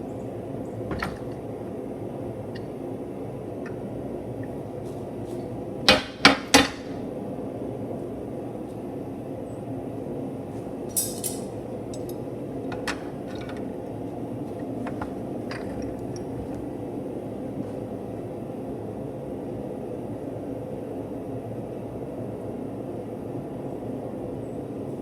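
Three loud metal clanks in quick succession about six seconds in, with a few lighter clinks later, over a steady low hum.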